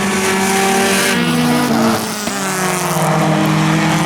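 Four-cylinder dirt-track race cars running at speed, several engines at high revs whose pitches shift and slide as the cars pass, with a brief dip in level about two seconds in.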